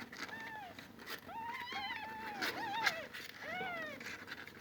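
Kitten mewing: a string of about five short, high-pitched calls, each rising and falling in pitch, with a few faint clicks between them.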